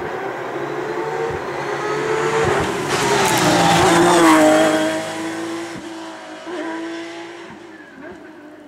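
Rally car at full speed on an asphalt stage: the engine grows louder and climbs in pitch as it approaches, is loudest as it passes close by about three to four seconds in, then drops in pitch and fades as it goes away.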